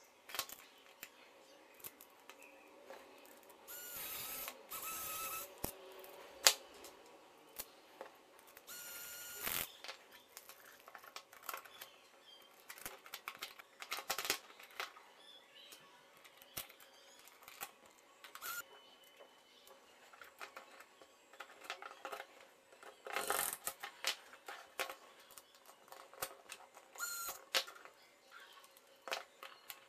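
3D-printed plastic suspension parts and small metal screws handled and fitted together by hand: irregular light clicks and taps, with a few short scraping bursts, the loudest about a quarter of the way in.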